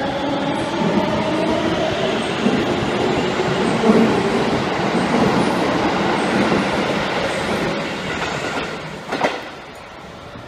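Odakyu 4000 series electric train running out of an underground metro station: steady running noise of wheels on rail with some wavering tones. A sharp clack comes about nine seconds in, after which the noise falls off as the train leaves.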